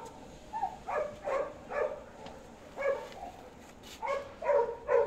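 Dog giving a string of short, high-pitched yips, about nine in two bursts, as it is excited by cats behind a cage.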